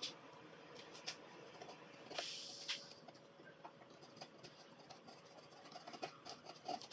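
A narrow hand chisel paring and scraping wood inside the throat of a wooden rebate plane body: faint small clicks and scratches, with one longer hissing scrape about two seconds in.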